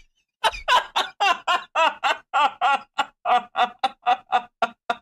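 A man laughing hard: a long, unbroken run of quick laughs, about four a second, starting about half a second in.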